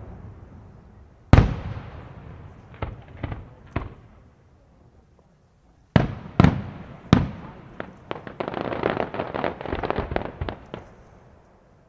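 Aerial firework shells bursting with sharp reports that echo away. There is one big bang about a second and a half in, a few smaller pops, and three more bangs around six to seven seconds. A few seconds of rapid crackling follow and fade out.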